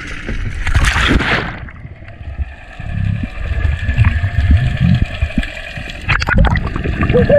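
A diver jumping off a boat into the sea: a loud splash about a second in, then the muffled sound of the underwater camera, with bubbling and low rumbling water and a faint steady high whine. Louder sloshing and knocks near the end.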